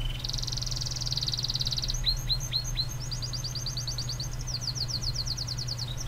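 Canary singing: rapid trills of high repeated notes, broken about two seconds in by a few quick downward-sweeping notes, then fast trills again, over a steady low hum.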